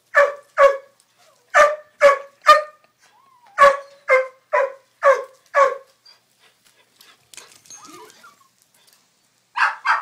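Dog barking in short runs of sharp barks: two, then three, then five in quick succession, then a pause and two more near the end. It is barking at a bird perched out of its reach.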